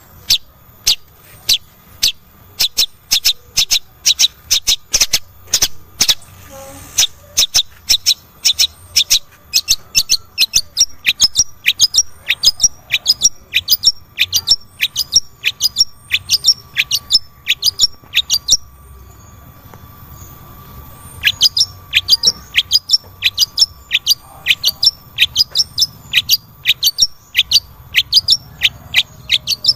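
Long-tailed shrike (cendet) calling: a rapid run of short, sharp, high calls at about three a second. The calls break off for a couple of seconds about two-thirds of the way through, then start again.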